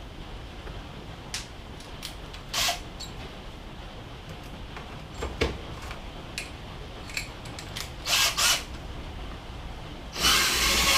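A few scattered clicks and knocks, then about ten seconds in a power drill starts and runs loud and steady, boring a hole with a larger bit to enlarge it.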